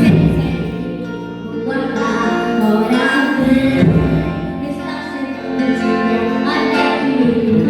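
Live worship hymn: singing over sustained instrumental accompaniment, with a few drum strokes from the percussion band.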